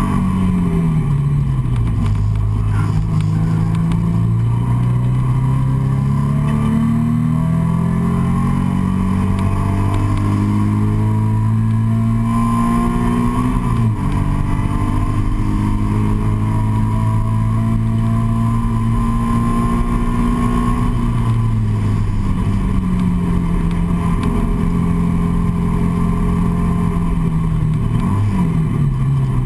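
Nissan 350Z's V6 engine heard from inside the cabin under hard acceleration on a track, its pitch climbing steadily and then dropping sharply about halfway through as it shifts up. It then holds a steady high-speed note, falls away as the car slows for braking, and gives a quick drop and rise in pitch near the end, as on a downshift.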